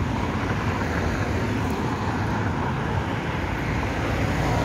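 Steady road traffic noise: cars and other motor vehicles passing along a street.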